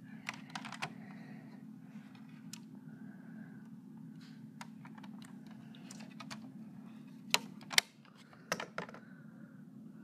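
Buttons on a wall thermostat's keypad being pressed to shut off the air conditioning: scattered sharp plastic clicks, the loudest two coming close together about three quarters of the way through. A steady low hum runs underneath.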